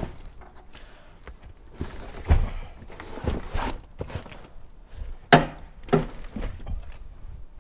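A series of knocks and thumps as boxed car parts are set down and shifted around in a car's boot. The loudest knock comes a little over five seconds in.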